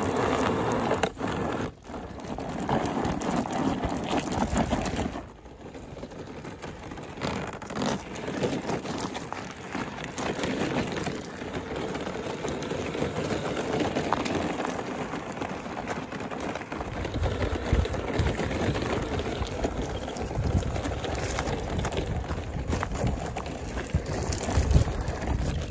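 Radio-controlled 4x4 scale crawler driving over loose gravel, stones crunching and rattling under its tyres. The sound drops away briefly about two and five seconds in, and low rumbling comes in during the second half.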